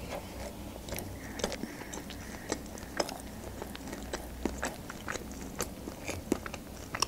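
A person chewing a mouthful of chicken burger, with many short, sharp mouth clicks, several a second.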